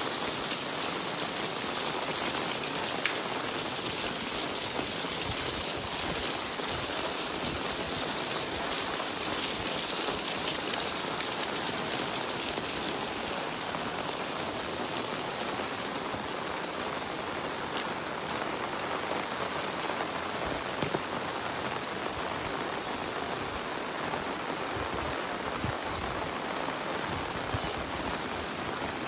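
Steady rain falling, an even hiss with faint scattered drop ticks, easing slightly in the upper range about halfway through.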